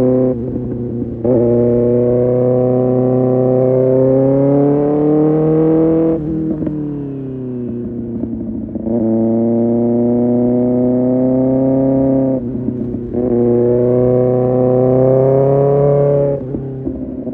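Kawasaki Ninja ZX-6R's inline-four running through an Arrow Pro Race exhaust, pulling under throttle with its pitch climbing slowly. The note drops away briefly near the start, about twelve seconds in and near the end. It drops away for longer, falling in pitch, from about six to nine seconds.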